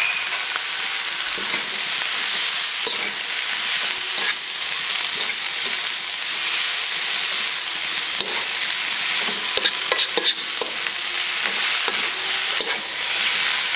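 Broccoli, cauliflower and carrot sizzling as they are stir-fried in a wok, a spatula tossing them, with scattered scrapes and taps of the spatula against the pan.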